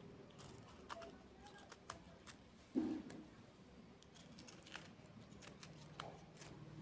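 Small knife cutting and paring the peel off an orange: faint, scattered clicks and crackles of blade and peel, with one duller, louder thump about three seconds in.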